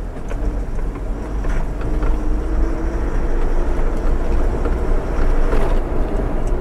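Loaded truck's diesel engine running at low speed, heard from inside the cab as a steady low rumble, with a few knocks and rattles from the truck as it rolls over an uneven dirt track.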